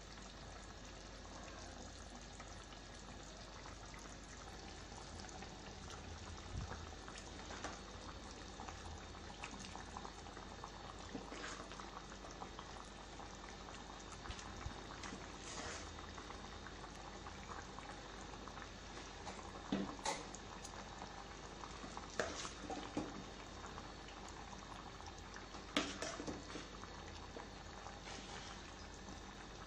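Chicken masala gravy simmering and bubbling in a clay pot, a steady soft hiss, with a few sharp knocks and scrapes of a spoon as mashed tapioca is layered on top; the loudest knocks come about two-thirds of the way through.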